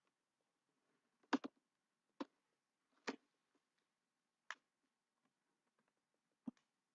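Computer mouse clicks: about five short, sharp clicks spaced a second or so apart, the first a quick double, on an otherwise near-silent track.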